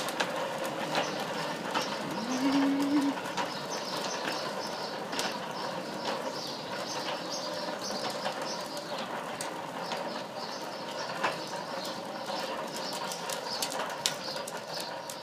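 Hard plastic tricycle wheels rolling over a concrete sidewalk: continuous rolling noise with many small clicks, plus a brief low hum about two seconds in.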